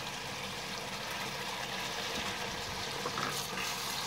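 Chicken karahi gravy sizzling and bubbling in a wok while it is stirred with a wooden spatula, with a brief scrape about three seconds in.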